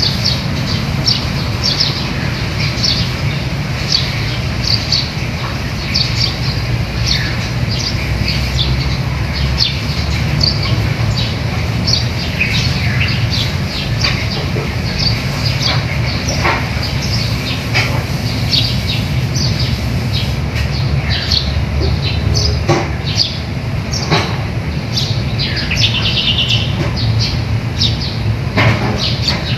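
Small birds chirping, many short high chirps in quick, irregular succession, over a steady low rumble.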